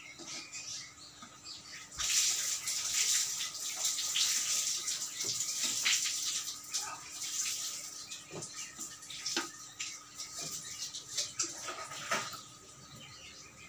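Hopia pastries sizzling as they pan-fry: a steady hiss with small crackles that comes up about two seconds in and eases off near the end.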